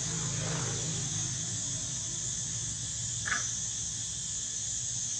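A macaque gives one brief squeak about three seconds in, over a steady high hiss.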